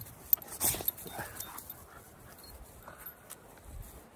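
A puppy making a few short cries, about a second in and again near three seconds. A sharp click and a brief noisy rush come before them near the start.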